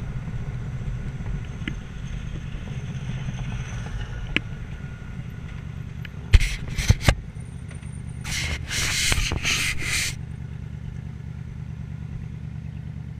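2006 Yamaha Royal Star motorcycle's V4 engine running steadily under way, heard from the seat. About six seconds in come three sharp knocks, then about two seconds of loud rushing, scraping noise, and the engine is quieter after that.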